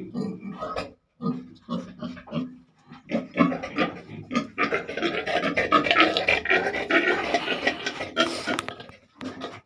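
Pigs grunting in short bursts, then from about three seconds in a louder stretch of many overlapping grunts and squeals that dies away near the end.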